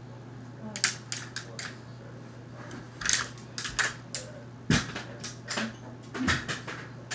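A run of sharp, irregular metallic clinks and clacks in small clusters, a few with a brief high ring, like hard metal objects knocking together.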